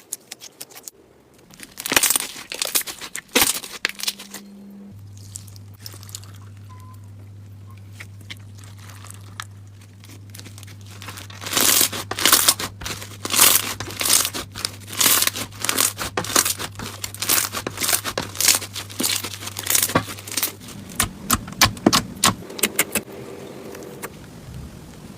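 Slime being squeezed and poked close to the microphone, with runs of sharp crackles and pops, a short burst about two seconds in and a long busy stretch from the middle to near the end.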